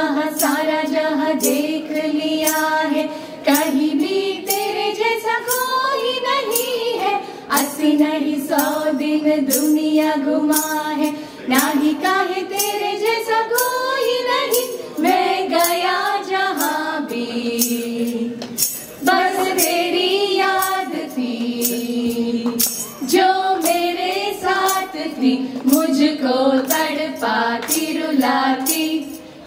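A group of women singing a melody together into microphones, with long held notes that glide up and down, over a steady percussion beat.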